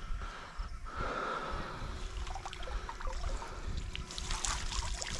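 Water splashing and dripping through the mesh of a carp landing net as it is lifted out of the lake, busiest near the end, over a low rumble.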